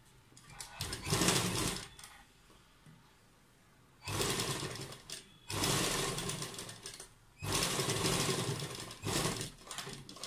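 Sewing machine stitching piping onto a kurta neckline, running in four short bursts with brief stops between as the fabric is guided around the curve.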